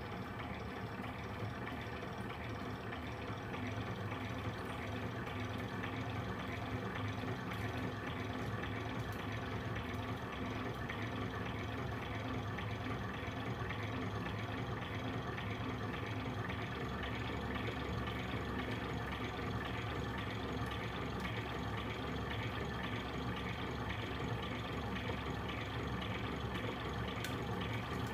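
Homemade coil-winding machine driven by a brushless motor, running steadily at slow speed as it winds copper magnet wire. It makes a steady mechanical whir.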